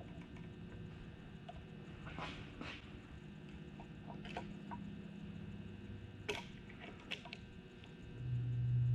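Scattered light clicks and scrapes of hand work on engine parts, then a loud steady low hum starts near the end.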